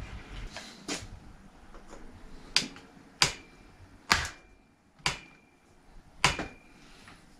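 About six sharp metallic snaps and clicks from a hand tool working on a bicycle's front brake and brake cable, several of them followed by a brief ringing ping.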